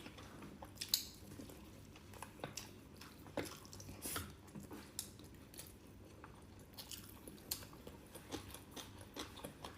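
Faint chewing and biting sounds of someone eating, with scattered small clicks.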